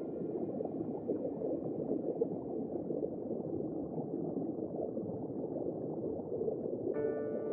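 Steady, muffled bubbling and rushing of water, low-pitched, as heard underwater. Background music comes back in near the end.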